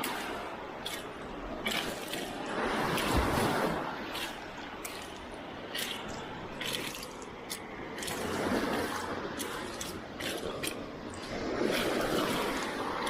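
Shallow sea water washing and splashing, swelling and fading every few seconds, with scattered small clicks and drips.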